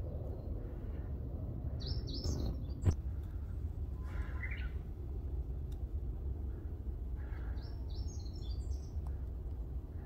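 Wild songbirds singing in short, high chirping phrases, about two seconds in and again near the end, with a lower phrase between them. A sharp click about three seconds in is the loudest sound, over a steady low rumble.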